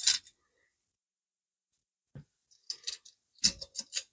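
Short metallic clicks and clinks from a Harley-Davidson Sportster cylinder head and its valve spring parts being handled on a workbench: a sharp click at the start, a soft knock about two seconds in, and a quick run of clinks near the end.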